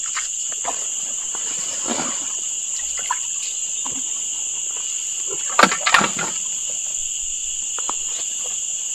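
Steady, high-pitched insect chorus droning at two pitches without a break. About halfway through comes a short cluster of sharp knocks and rustles as gear is handled in the wooden boat.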